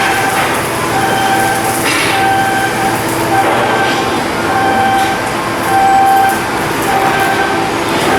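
Steady, loud machinery noise with an electronic warning beeper sounding the same tone about once a second, each beep about half a second long, over a low steady hum.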